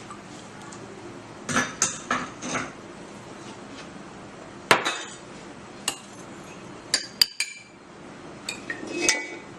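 Kitchen utensils and dishes clinking and knocking together in a scattered run of sharp taps, some with a brief metallic ring, while the mint juice is handled.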